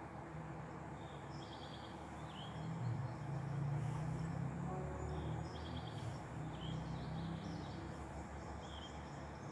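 Outdoor ambience of small birds chirping and trilling in short calls every second or two, over a low steady hum that grows louder in the middle.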